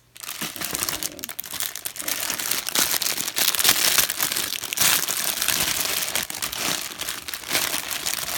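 Clear plastic wrapping crinkling and rustling as it is handled around a packaged item, in a rapid, irregular crackle that grows louder in the middle.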